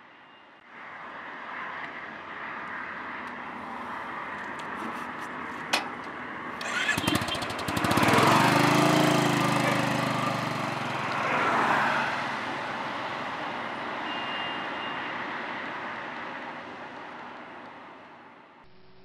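Motorcycle engine running, then pulling away loudly about seven seconds in and fading as the bike rides off into the distance.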